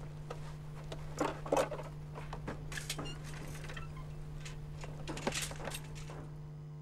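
Handling noises as a mannequin is heaved onto a bicycle: rustling and knocking, with the loudest thumps about a second and a half in and again near five seconds. A steady low hum lies underneath.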